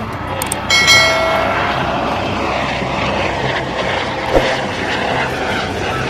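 Helicopter in flight: steady rotor and engine noise, with a brief whining tone about a second in.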